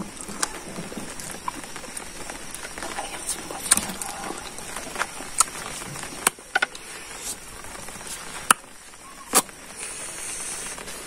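A man chewing and smacking his lips while eating rice and pork by hand, with a sharp wet mouth click every second or two.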